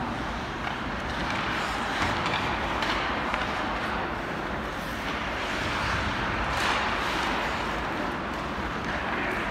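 Ice hockey game ambience in an arena: a steady wash of crowd and rink noise with a few faint knocks, about two seconds and three seconds in and again near seven seconds.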